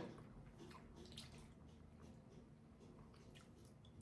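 Near silence with faint wet clicks and smacks of someone chewing a mouthful of macaroni.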